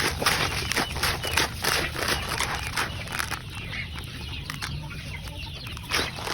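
Chickens clucking, mixed with many short clicks and scuffs. The sounds thin out about halfway through and pick up again near the end.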